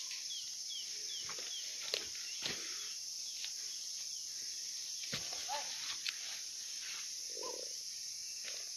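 Steady high buzz of insects, with a run of short falling bird chirps in the first second or so. A few sharp clicks and a couple of short lower calls come later.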